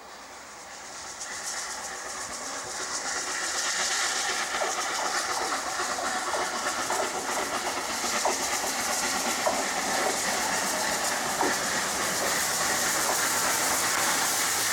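Steam locomotive 34046 Braunton, a rebuilt Bulleid light Pacific, approaching: growing louder over the first four seconds, then a steady hiss of steam with scattered clicks of wheels on the rails.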